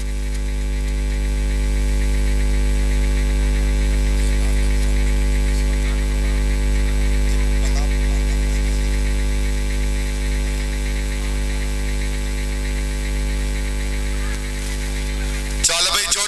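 Loud, steady electrical mains hum: a low drone with a stack of buzzing overtones above it. It breaks off near the end, where a voice and music come back in.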